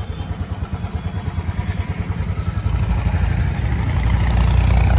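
Royal Enfield Bullet's single-cylinder engine running with a steady low thump, getting louder over the last couple of seconds as the bike is ridden off.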